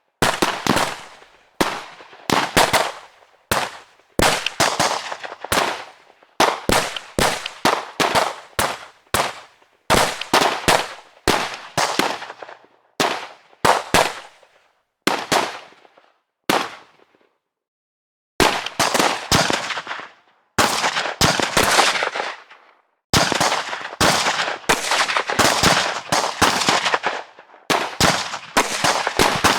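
Gunfire: single shots and rapid bursts of several shots from a firearm, each crack ringing out briefly, with a pause of about two seconds partway through.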